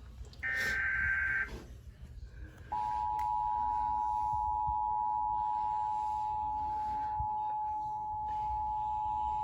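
Emergency Alert System broadcast tones: a burst of SAME digital header data lasting about a second, then, about three seconds in, the two-tone attention signal starts and holds steady.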